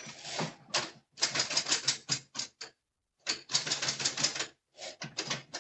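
Typewriter being typed on: quick runs of key strikes, in several short bursts separated by pauses of about half a second.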